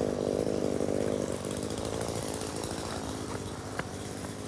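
Outdoor air-conditioner condenser unit running: a steady, buzzy hum that gradually fades.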